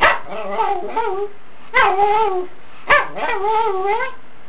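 Pomeranian dog giving three drawn-out, speech-like howling calls, each about a second long. Each begins sharply and then wavers up and down in pitch, like a dog trying to say 'hello' or 'hi mom'.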